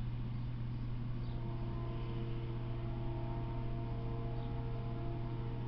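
Steady low electrical hum from the trail camera's own recording. From just over a second in until near the end, a faint distant drone made of several steady tones sits under it, and a few faint high chirps come and go.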